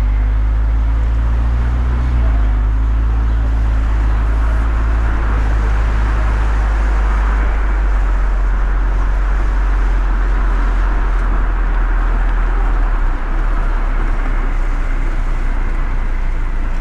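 A car driving on a wet road: a steady deep rumble of engine and road noise under a continuous tyre hiss on the wet surface.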